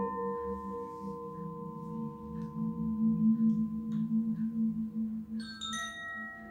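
Ambient meditation background music: a sustained low drone with a long ringing tone held over it, joined near the end by a few higher chiming notes.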